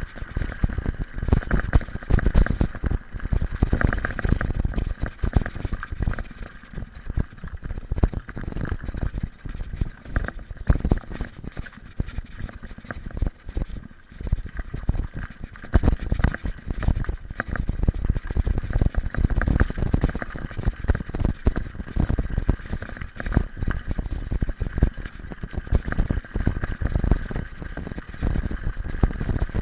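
Mountain bike riding over a loose gravel road: the tyres rumble on the stones, and the bike and its handlebar camera mount rattle with frequent small knocks, along with wind buffeting the microphone.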